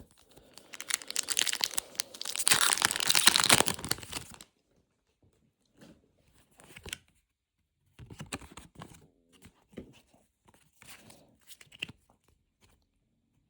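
Foil wrapper of a Pokémon booster pack being torn open: a loud rasping tear lasting about four seconds, followed by soft crinkling and rustling of the wrapper and cards.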